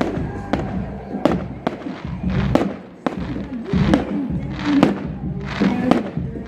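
Fireworks going off in a rapid, irregular series of sharp bangs, around ten in six seconds, over music playing throughout.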